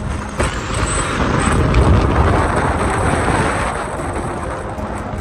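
Road traffic noise: a vehicle's rushing sound swells to a peak about two seconds in, then eases off.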